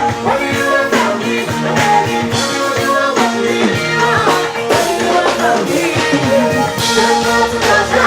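Music with a steady drum beat, held instrumental notes and a singing voice.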